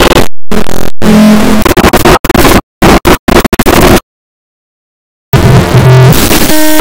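Loud, heavily distorted noise with some pitched tones mixed in, chopped by abrupt cuts: several brief dropouts in the first half, then a dead-silent gap of about a second before the distorted noise resumes.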